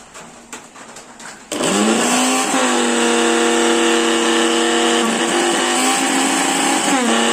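Electric mixer grinder motor switched on about a second and a half in, spinning up and running loud and steady, then switched off near the end and starting to wind down. The loud running noise is the fault the repair cures by replacing the motor's worn bushes.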